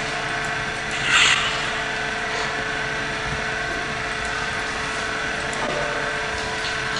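Steady hiss and hum of an old camcorder recording, with one short, louder rustling noise about a second in.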